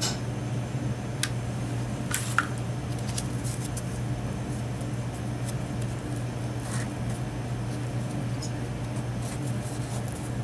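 Hands pressing and holding a freshly hot-glued cardboard piece: scattered small clicks and cardboard rustles over a steady low hum.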